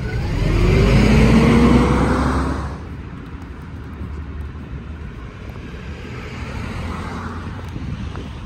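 City bus pulling away from the stop. Its engine and drivetrain whine rise in pitch for about two seconds as it accelerates, then drop off to a lower, steady traffic noise about three seconds in.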